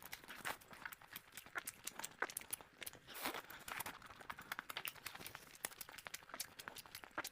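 Close-miked eating sounds: quick, irregular crunchy chewing clicks and wet mouth noises.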